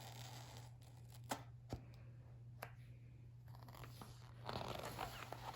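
Faint paper rustling and a few light clicks as a picture-book page is handled and turned, over a steady low electrical hum.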